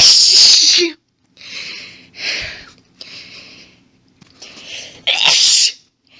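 A woman sneezing twice in a sneezing fit: a loud sneeze right at the start and another about five seconds in, with shorter breathy build-up sounds between them.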